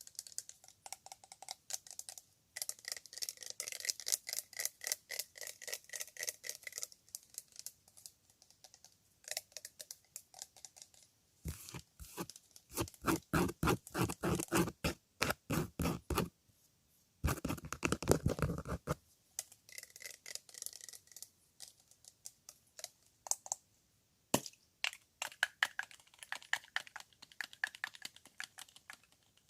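Fast ASMR tapping and scratching on objects, in quick runs of many light strokes a second. There are two louder, fuller runs, from about twelve to sixteen seconds in and from about seventeen to nineteen seconds in.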